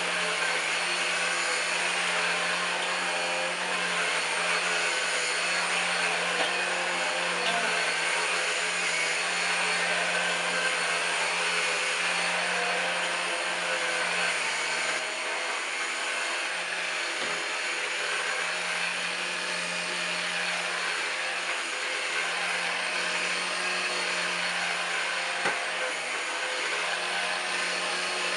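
Numatic Henry Quick HEN70 cordless stick vacuum running steadily on its standard power setting, a constant motor whine and airflow hiss, with a small knock near the end.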